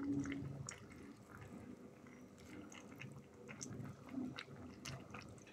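Metal spoon stirring bigos, a sauerkraut and cabbage stew, in a pot: faint wet squishing with scattered light clicks, a little louder in the first second.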